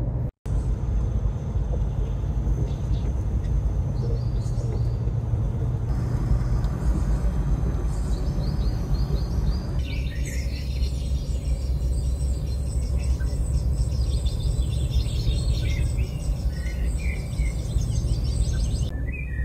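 Steady low road and engine rumble inside a truck cab at highway speed. From about halfway through, recorded birdsong plays over it with many quick chirps and trills.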